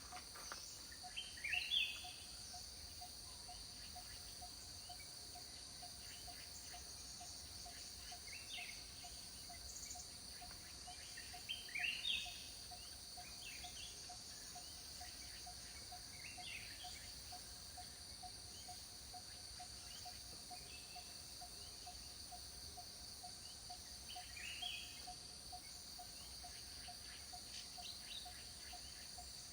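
Forest ambience: a steady high-pitched insect chorus with a lower, evenly pulsing call underneath, and short bird calls now and then, loudest near the start and about twelve seconds in.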